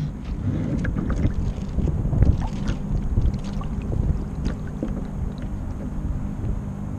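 Water splashing and slapping against the hull of a Kyosho Seawind RC sailboat as it heels through choppy water, picked up by a camera on its deck, with wind rumbling on the microphone.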